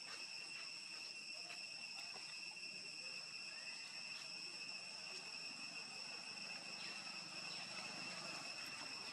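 Steady, high-pitched drone of insects (crickets or cicadas) calling, with a few faint ticks.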